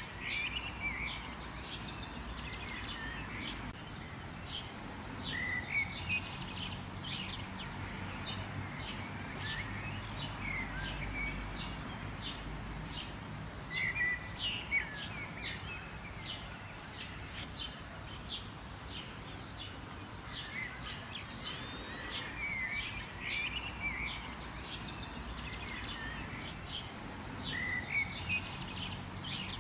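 Several birds chirping and calling, short rapid chirps and whistled notes over a steady background hiss of outdoor ambience.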